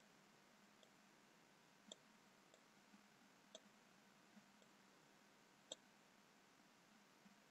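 Faint computer mouse button clicks, about eight scattered irregularly, the loudest a little over five seconds in, over a faint steady hum.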